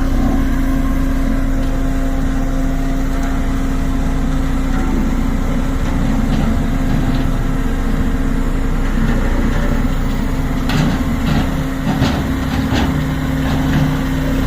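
Road roller's diesel engine running steadily with a constant hum while it compacts a crushed-stone soil-cement base, with a few brief knocks a little past the middle.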